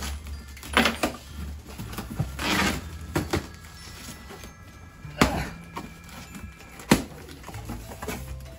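Packing tape being peeled and ripped off a cardboard box and the cardboard flaps pulled open: a few short, sharp rips and crackles, the longest about two and a half seconds in.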